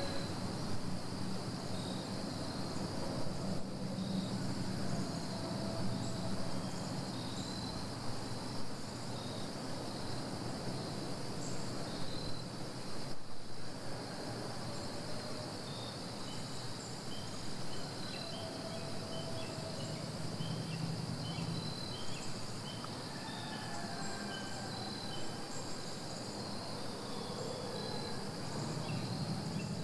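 Steady outdoor insect chorus of crickets trilling, with short high chirps scattered through it.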